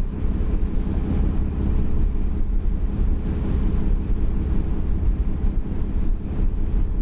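Ferry engine running with a steady low drone, with wind buffeting the microphone.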